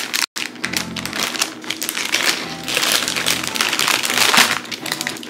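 Clear plastic zip-top produce bag crinkling as it is handled, over background music. Near the start the sound cuts out completely for an instant.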